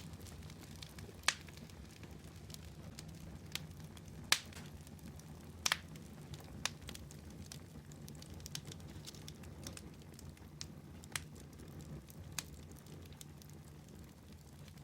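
A fire crackling: irregular sharp pops and snaps over a low steady rumble.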